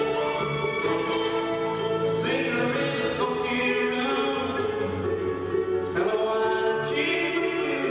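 Live bluegrass band music: a man sings lead over acoustic guitar and fiddle, with held vocal notes that change about every second.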